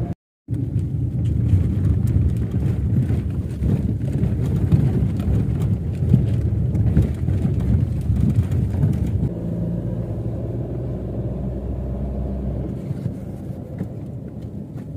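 Car being driven, heard from inside the cabin: a rough rumble and rattle of tyres on a gravel road surface, which gives way about nine seconds in to a smoother, steady engine hum on paved road.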